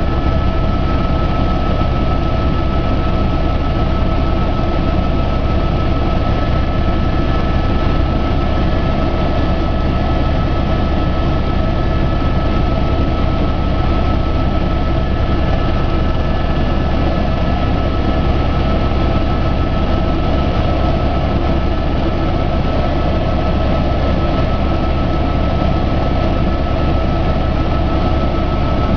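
Aircraft engine noise heard from on board in flight: a loud, unbroken drone with a deep rumble and a constant high whine that never changes.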